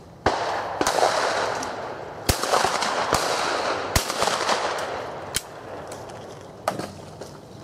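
Shotgun firing at clay targets: a sharp report about a quarter second in, then further reports over the next few seconds, each trailing into a long rolling echo that fades away.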